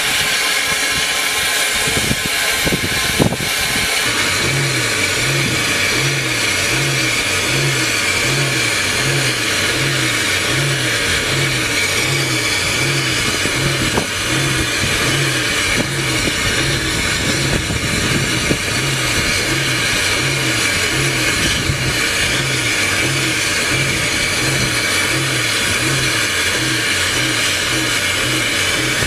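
Saddle-tank steam locomotive standing with steam hissing steadily from low down by its cylinders. A few seconds in, a regular low pulsing beat of about one and a half per second joins the hiss.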